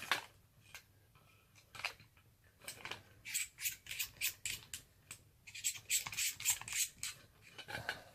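Hands handling the stabiliser's parts and plastic packaging: short, sharp rustling clicks, in two quick runs of about four a second.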